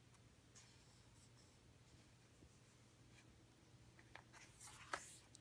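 Near silence, then about four seconds in, a hardcover picture-book page being turned: a few short paper rustles and a soft flip.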